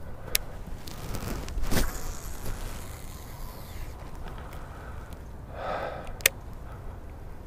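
A baitcasting rod and reel being cast: a swish of the cast about two seconds in, line running off the spool with a soft hiss, then a sharp click near the end as the reel is engaged. Wind and handling rumble run underneath.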